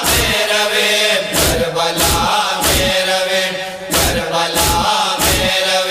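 A noha (Shia lament) chanted by voices in unison, cut by loud, sharp, rhythmic chest-beating slaps (matam) about every two-thirds of a second.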